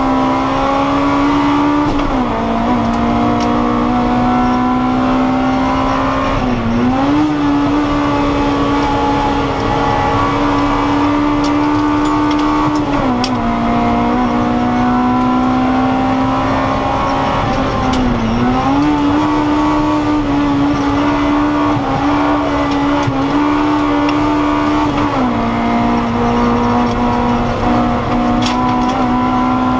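Honda Integra race car's four-cylinder engine heard from inside the cabin, held at high revs under hard acceleration on a hill climb, its pitch dipping briefly and recovering about five times as the driver shifts or lifts.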